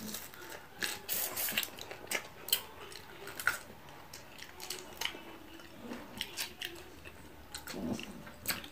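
Close-up chewing and crunching of crisp lettuce and raw vegetables, an irregular run of short crackling bites and mouth clicks.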